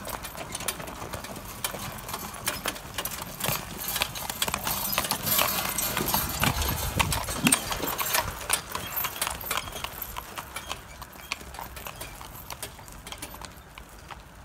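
A horse's hooves clip-clopping on the road as it pulls a cart loaded with metal milk cans past. The hoofbeats are loudest about halfway through and fade as the cart moves away.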